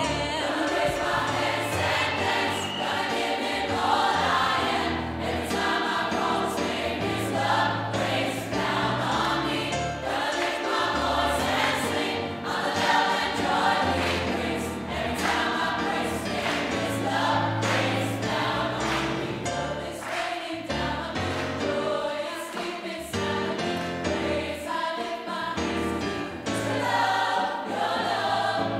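Gospel choir singing with a female lead vocalist, over a band accompaniment with a steady beat and bass line.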